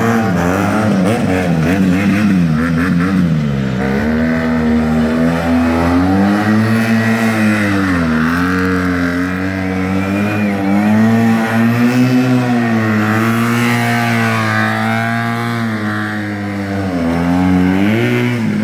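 Stunt motorcycle engine revving up and down over and over, its pitch rising and falling every second or two as the throttle is worked.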